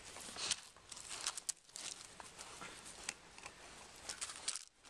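Loose gravel crunching and scattering in irregular scuffles under two puppies' paws and bodies as they wrestle.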